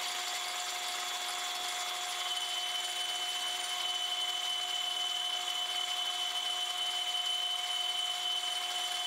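Metal lathe running while a boring bar cuts inside the bore of a naval brass gear blank: a steady hissing cut over a steady machine whine, the higher whine growing stronger about two seconds in.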